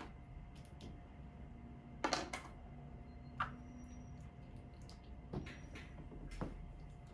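Small plastic Kinder Joy toy pieces clicking and tapping as they are handled and fitted together by hand: scattered light clicks, the loudest a quick cluster about two seconds in.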